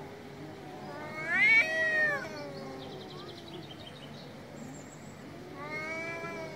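Cats caterwauling in an aggressive standoff: a low, drawn-out wavering yowl runs throughout, with a loud yowl that rises and falls in pitch about a second in and a second yowl near the end from the ginger cat. This is threat yowling between two rival cats squaring off.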